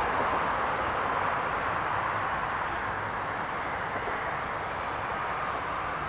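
Steady, even hum of distant city traffic.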